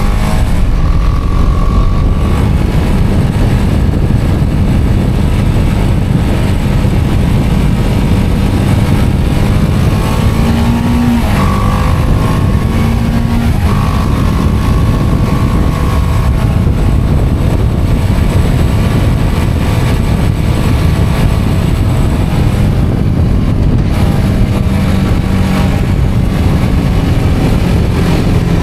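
BMW G310R motorcycle's single-cylinder engine running under way beneath a heavy rumbling noise. Its note mostly holds steady, rising briefly twice about ten to thirteen seconds in.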